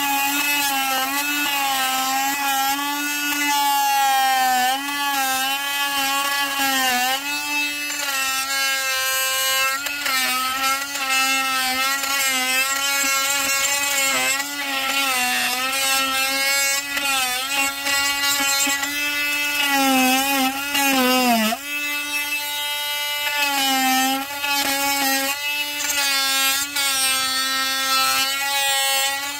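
Makita chainsaw cutting out a mortise in a pine post, its motor pitch wavering as it takes and sheds load. About 21 s in, the motor winds down sharply, briefly cuts out, then runs again.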